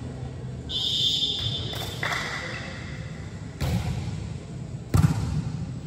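Volleyball being struck during play: two sharp smacks about a second and a half apart, the second the louder. A brief high squeak comes about a second in.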